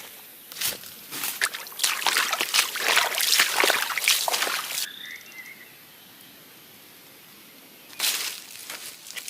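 Irregular wet sloshing and crackling, like splashing or handling things in water. It runs densely for about four seconds and stops suddenly to a faint hush, then starts again near the end.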